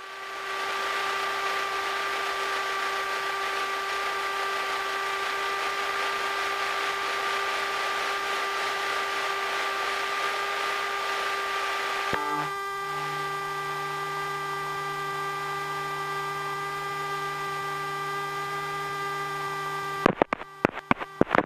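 Aircraft intercom feed in a Cessna Skyhawk: a steady electrical hum of several fixed pitches over a hiss. About twelve seconds in a lower hum joins, and near the end the sound chops in and out rapidly.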